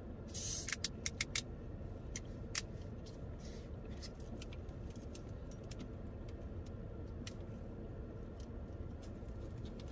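Metal screw cap of an aluminium drink bottle being twisted open: a brief hiss, then a quick run of sharp clicks as the seal gives, and one more click a second later, over a steady low hum.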